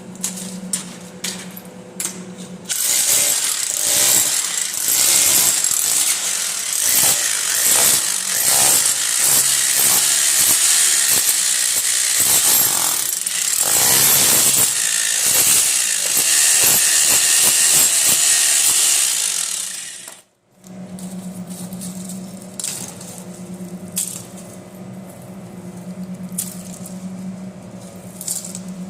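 Hammer drill boring, a loud rasping noise with rapid hammering that starts about three seconds in and cuts off suddenly about twenty seconds in. Before and after it a quieter steady hum runs, with scattered clicks.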